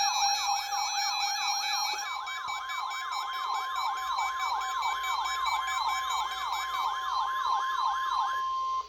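Electronic weather-radio alarm: a fast wailing siren sweeps up and down about two to three times a second over a steady alert tone. The tone steps up in pitch about two seconds in to the 1050 Hz NOAA Weather Radio warning tone, and everything stops just before a test message begins.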